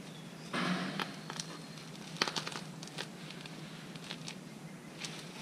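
Handling noise of a rope being wrapped around a small engine's starter pulley: a brief rustling scrape about half a second in, then scattered clicks and taps.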